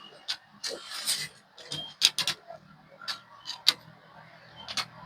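Irregular small clicks and taps with light scraping: a screwdriver and hands working on a laptop's motherboard and chassis while screws are driven and parts seated during reassembly.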